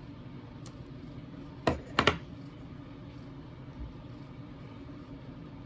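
Handling noise from small plastic parts: one sharp click a little under two seconds in and a quick double click right after, over a steady low hum.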